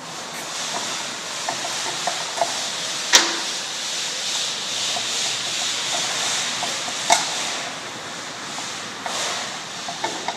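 Small clicks and taps of a hand tool and metal parts as the guard is unscrewed from a chainsaw, with two sharper knocks, about 3 and 7 seconds in, over a steady hiss.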